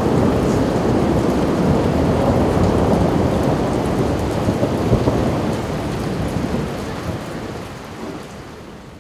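Heavy rain pouring, with a deep continuous rumble under it; the sound fades away over the last few seconds.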